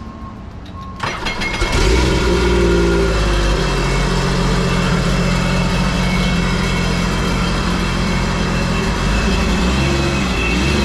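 Electronic beeping stops about a second in as the starter cranks, and the 2015 Sea-Doo GTX iS Limited 260's supercharged Rotax 1503 three-cylinder four-stroke catches, revs briefly and settles into a steady idle. This is the first start after the supercharger and a new intercooler were refitted.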